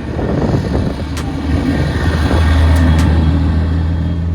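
Turbocharged Honda engine running with a low, steady exhaust note that builds over the first couple of seconds and then holds, with a few light clicks over it.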